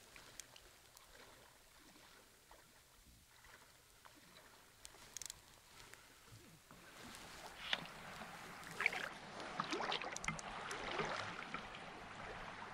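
Water sloshing and splashing, faint at first, then growing louder about halfway through, with small clicks among it.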